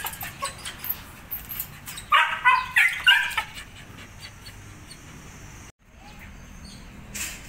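Dog whining in a short run of high-pitched cries about two seconds in, lasting about a second.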